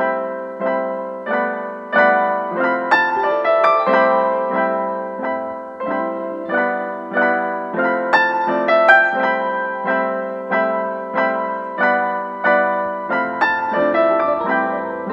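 Background piano music: a gentle run of struck notes and chords, each fading away before the next, about one or two a second.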